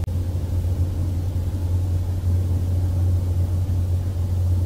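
A car driving at a steady speed: an even, low engine and road drone as heard inside the cabin.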